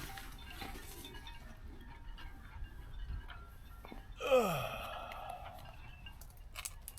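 A person's short groan or sigh about four seconds in, falling steeply in pitch, over faint background noise, with a few light clicks near the end.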